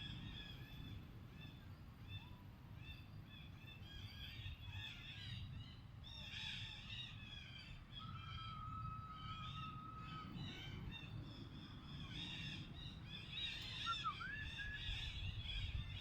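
Many short, high animal calls repeating over a low rumble outdoors, with a single steady tone held for about two seconds near the middle.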